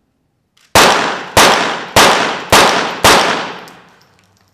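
A five-shot rapid-fire series from .22 Short rapid-fire target pistols: five sharp shots about 0.6 s apart, each echoing away before the next.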